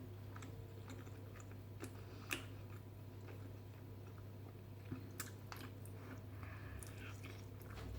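A person chewing barbecue ribs close to the microphone, with scattered small wet clicks and smacks of the mouth. A steady low hum runs underneath.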